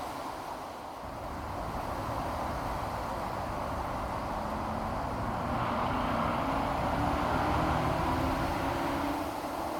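Steady rumble of distant traffic, swelling for a few seconds past the middle as a louder vehicle or train passes, then easing off near the end.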